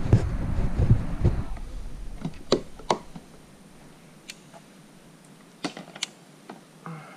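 Rumble and thumps of the camera being handled, then scattered sharp clicks and knocks, about eight of them, from fishing gear handled on a plastic kayak.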